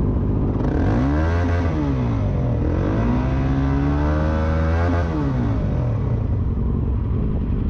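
Motorcycle engine revved while standing. The revs climb about a second in, dip briefly, rise and hold high for a couple of seconds, then drop back to idle about five and a half seconds in.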